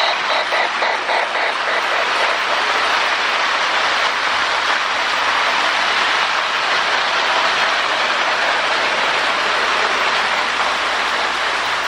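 Lionel MPC Berkshire O-gauge model steam locomotive running on its track: a steady rushing hiss of wheels, motor and electronic steam sound, with a few rhythmic chuffs in the first second or so.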